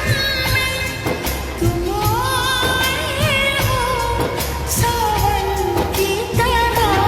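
Background song with a melismatic singing voice over bass and a steady beat, in a South Asian film-song style.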